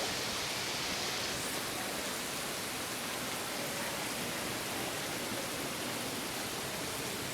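Heavy rain falling, a steady even hiss with no single drops standing out.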